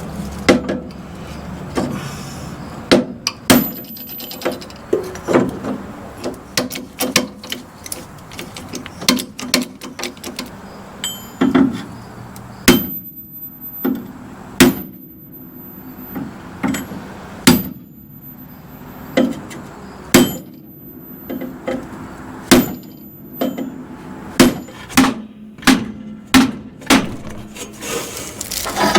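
Hammer blows on the bent steel frame of a 1966 Ford Ranchero, which is being straightened after curb damage. The sharp metal strikes come irregularly, about one or two a second, some of them ringing.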